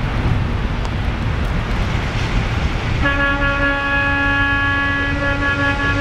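Street traffic rumbling through slush, with wind on the microphone. About halfway in, a steady horn-like tone starts and holds.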